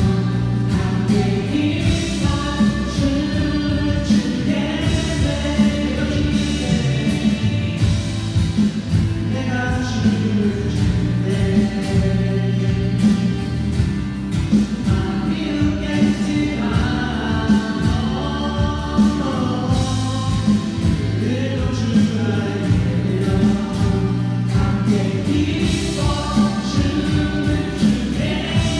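Several voices singing a Korean worship song together over a steady instrumental accompaniment with a regular beat.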